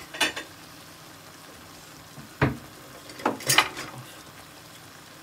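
A handful of sharp clinks and knocks of a utensil against a cooking pan, several close together around three seconds in, over a steady low simmer of onion gravy in the pan.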